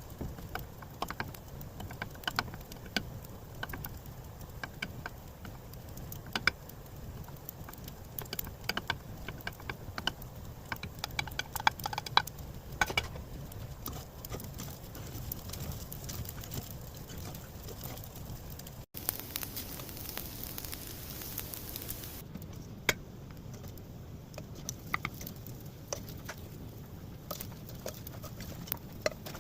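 Scattered light clicks and taps, irregular and sharp, over a steady low hum. The sound breaks off abruptly about 19 seconds in and carries on with the same kind of taps after the break.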